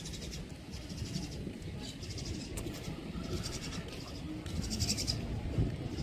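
Birds chirping outdoors in short bursts of rapid high notes, repeating every second or so over a steady low rumble.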